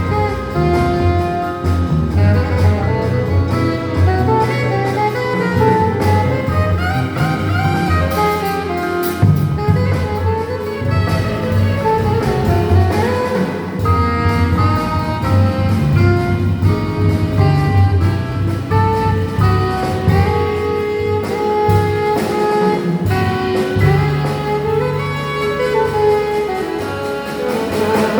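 Live jazz combo playing, with a double bass line underneath the melody.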